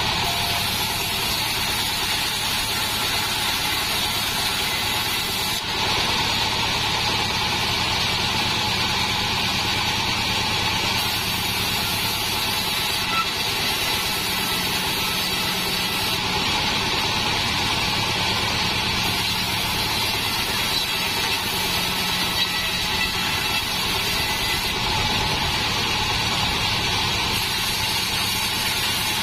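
Engine-driven assembled bandsaw mill running steadily while a plank of salam wood is fed through the blade.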